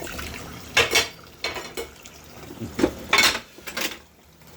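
Dishes and cutlery clattering and clinking against each other while being washed up. There are several sharp knocks, the loudest about a second in and a quick cluster around three seconds in.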